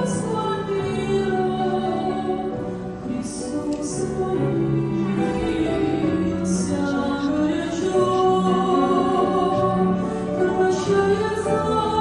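Several voices singing a Russian hymn together, a held, steady melody with sung 's' sounds cutting through now and then.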